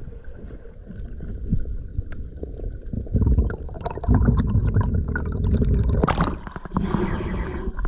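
Water rushing and rumbling past an underwater camera during a freediver's ascent, scattered with small clicks and bubbling. The surface breaks about six seconds in, adding a brighter splashing hiss.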